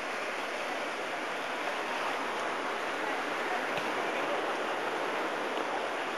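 Ocean surf washing over a rocky shore, a steady even rush of water.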